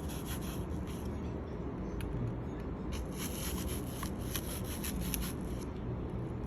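Small knife cutting and scraping into an apple: short crisp scraping strokes in a cluster near the start and again from about three to five and a half seconds in.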